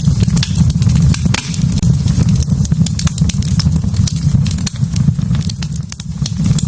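Wood fire burning in a fireplace: many sharp crackles and pops at irregular intervals over a loud, steady low rumble.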